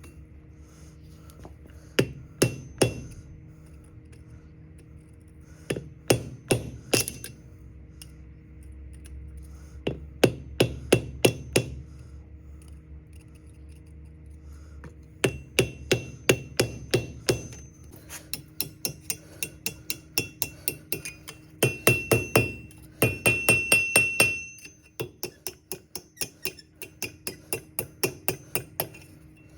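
Blacksmith's hammer striking a small piece of steel on an anvil: short bursts of three to five ringing blows with pauses between, then a long run of quicker, lighter strikes in the second half, as a miniature horseshoe pendant is forged.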